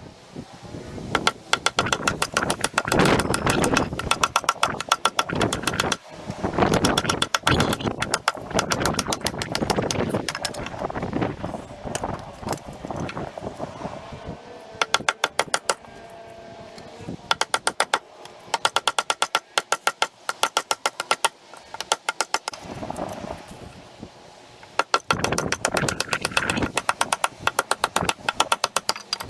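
Repeated sharp knocks of a wooden beating stick striking the back of a Fiskars blade to split pine blocks into shakes, coming in fast runs of strikes with short lulls between them.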